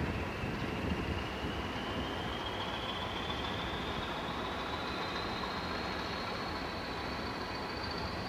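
Train moving slowly, with a low rumble and a high whine that climbs steadily in pitch.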